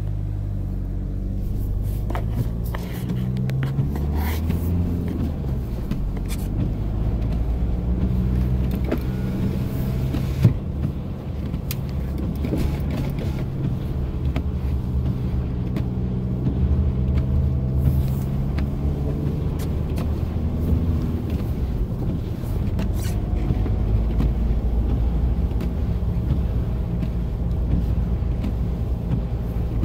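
Car heard from inside the cabin while driving on a snow-covered road: a steady low rumble of engine and tyres, the engine note drifting up and down, with scattered light clicks and one sharp knock about ten seconds in.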